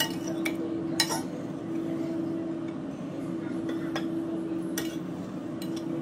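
Metal serving spoon clinking against china plates as food is dished up, with a few sharp clinks scattered through. A steady hum runs underneath.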